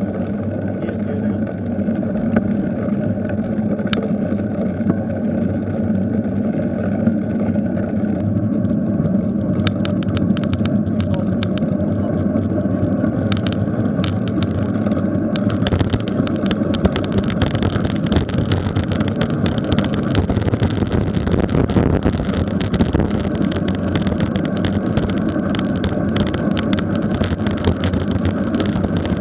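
Wind rushing over the microphone of a camera riding on a moving bicycle, mixed with tyre and road noise. It grows louder and fuller about halfway through as the bike speeds up downhill, with scattered light clicks and rattles over it.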